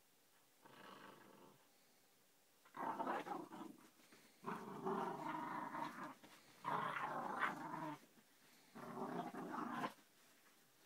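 Whippet–Jack Russell cross puppy growling in play while mouthing and shaking a rope toy, in repeated bouts of a second or two with short pauses between.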